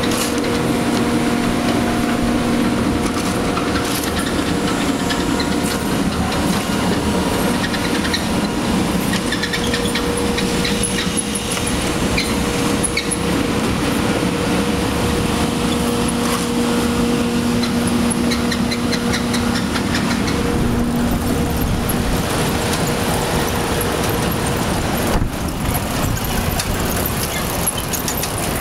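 Potato scooper and conveyor machinery running: a steady motor hum under a dense clatter of potatoes tumbling along the belts. About 25 seconds in the sound breaks off and gives way to a slightly quieter conveyor clatter.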